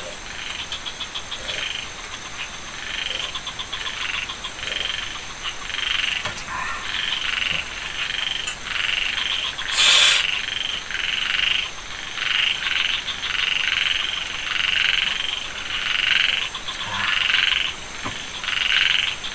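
Frogs calling at night: a continuous run of short, pulsed croaks repeating about every half second to a second. A brief, loud noise cuts in about halfway through.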